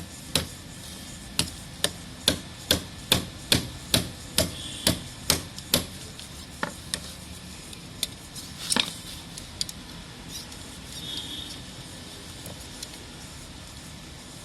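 Sharp knocks of a tool striking a pipe joint: about eleven in quick succession at roughly two a second, then a few scattered ones.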